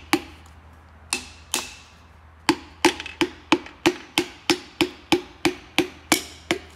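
A forged piston being tapped down through a band-type piston ring compressor into a cylinder of a BMW M52 engine block with the end of a handle. Sharp knocks, each with a short ring, come about three a second: a few spaced out with short pauses in the first two and a half seconds, then a steady run that stops near the end.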